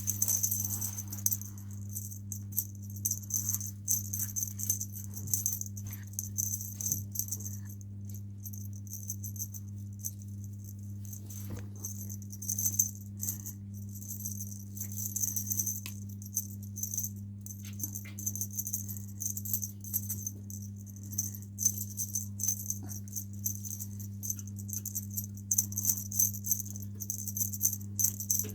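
Irregular light jingling and rattling, with scattered small clicks, over a steady low electrical hum.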